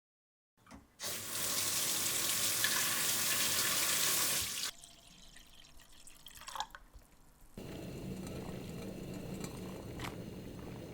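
Kitchen tap running water into a pot for about four seconds, then shut off abruptly. A few seconds later a steady, quieter hiss sets in as the water heats on the stove.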